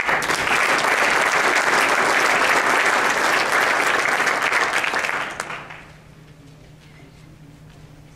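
Banquet audience applauding, starting suddenly and dying away after about five and a half seconds.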